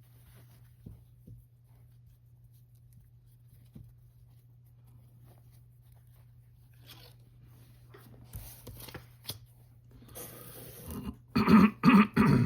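Faint handling and rustling as small copper castings are packed into velvet pouches, with a few light clicks over a steady low hum. Near the end come several short, loud bursts of a person's voice.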